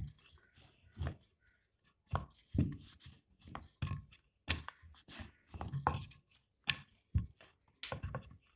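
Wooden rolling pin rolling out atta dough on a round wooden board: irregular knocks and thuds of wood on wood, a little under two a second.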